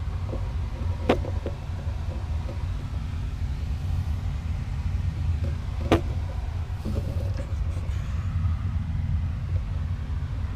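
A steady low rumble, with two sharp clicks about five seconds apart.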